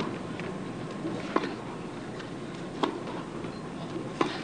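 Tennis rally: a ball struck by rackets three times, about a second and a half apart, over a steady low crowd hush.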